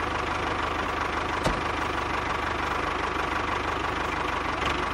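Tractor engine running steadily with an even knocking beat, with a single click about one and a half seconds in.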